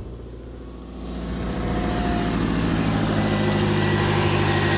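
2011 Toyota Matrix engine idling steadily, running with a freshly replaced thermostat and refilled coolant; it grows louder about a second in, then holds steady.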